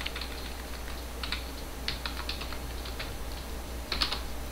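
Computer keyboard typing: scattered single keystrokes, with a quick cluster of keys near the end, over a low steady hum. The keys are typing a word into a terminal text editor and giving the save command.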